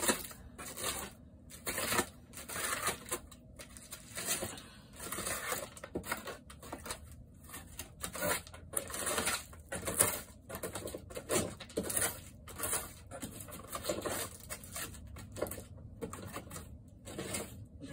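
Thin wood wall paneling being broken and torn off by hand: repeated irregular cracking, snapping and splintering crunches.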